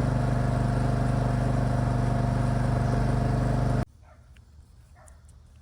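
Gravely ZTX-42 zero-turn mower engine running at a steady speed, cutting off suddenly about four seconds in. After that only faint cricket chirping is heard.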